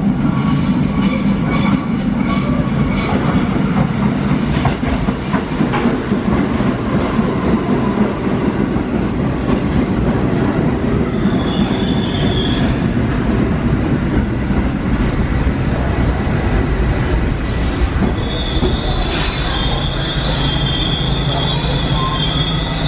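R68 subway train entering an elevated station: a steady rumble of wheels on rails, with sharp clicks over the rail joints in the first few seconds. A high squeal sets in briefly about halfway through and again for the last few seconds as the train slows.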